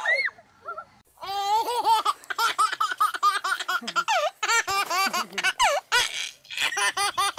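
Baby laughing in quick, repeated bursts of high-pitched giggles, starting about a second in after a brief pause.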